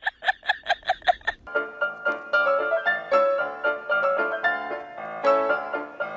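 A quick run of high, pitched laugh-like calls, about five a second, stops about a second and a half in. Piano music with a light, bouncing melody takes over.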